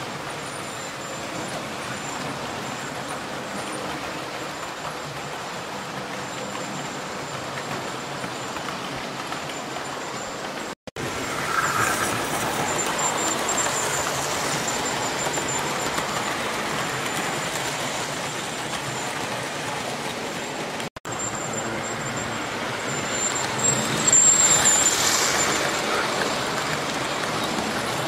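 00 gauge model trains running on a layout: a steady rumble of wheels on rail and small electric motors, with a thin high whine over it. The sound breaks off for an instant twice. It is louder after the first break and loudest a few seconds before the end.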